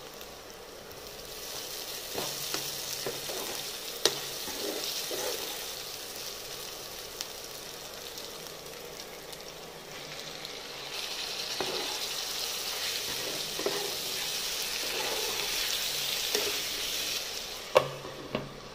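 Chopped onions and ginger-garlic paste sizzling in oil in a nonstick pot while a spatula stirs, with a few sharp knocks of the spatula against the pan. The sizzle grows louder about eleven seconds in, after chopped tomatoes go in. Two sharp knocks come near the end.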